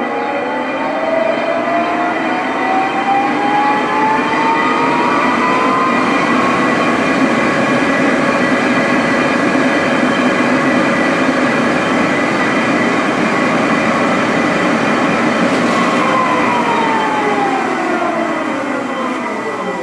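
Geared headstock of a Tuda Jumbo 1250/4000 engine lathe with its 30 HP motor, running its spindle and large chuck at top speed, 590 RPM: a loud whine of several tones rises for the first few seconds as it comes up to speed, holds steady, then falls away near the end as the spindle is stopped and coasts down.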